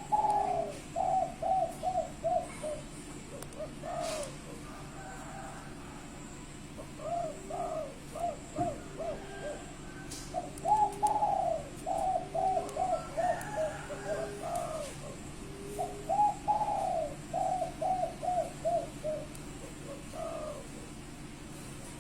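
Spotted dove (derkuku) cooing in repeated phrases. Each phrase is a longer opening coo followed by a run of five or six short coos (the 'kuk 5-6' song type), with pauses between phrases and softer, lower coos in between.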